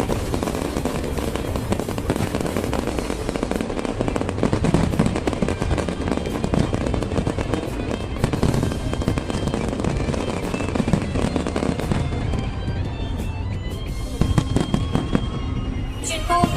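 Fireworks going off in a dense run of bangs and crackling, with music playing underneath; near the end the bursts thin out and the music comes to the fore.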